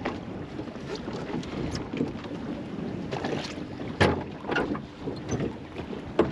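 Wind buffeting the microphone on a small fishing boat, with a few sharp knocks and clunks on the boat, the loudest about four seconds in and another just before the end.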